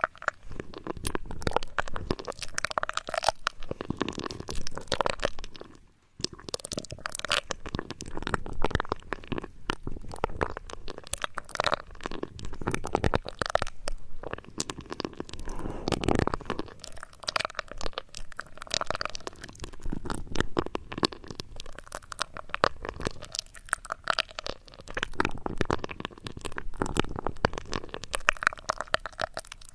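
Close-miked ASMR trigger sounds: a dense, continuous run of crunching, crackling and rubbing noises right against the microphone, with a brief pause about six seconds in.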